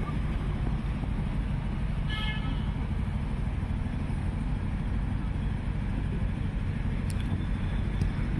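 Steady low rumble of outdoor background noise, with a brief vehicle horn toot about two seconds in and two sharp knocks near the end.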